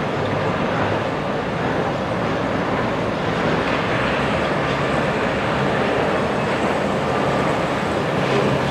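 Steady rumble of heavy diesel machinery working in a coal yard.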